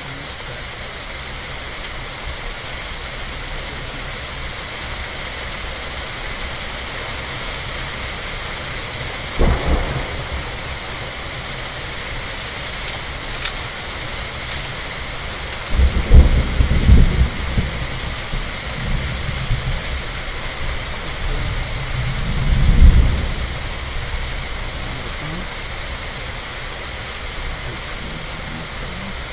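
Steady heavy rain with thunder: a short clap about a third of the way in, then longer low rumbles a little past halfway and a swelling rumble about three-quarters through, the loudest of them.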